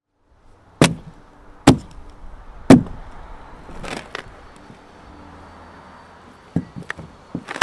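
Three sharp chops of a hand carving tool biting into the wood of a dugout canoe log, about a second apart, followed by a brief scrape and a few softer knocks near the end.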